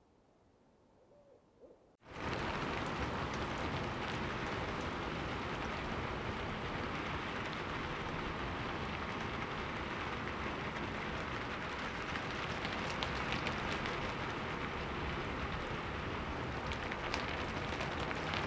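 Steady rain, with fine crackling drops, starting abruptly about two seconds in after near silence.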